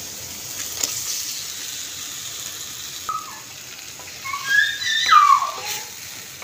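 Small fish and shrimp sizzling in hot oil and spice paste in a wok, a steady hiss as they are stirred. In the second half, high-pitched sliding squeals of a child's voice rise and fall over the frying and are louder than it.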